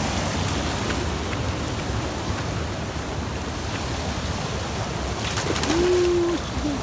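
A mountain stream rushing steadily. Near the end come a few sharp clicks, then a short, low, held call and a briefer one after it.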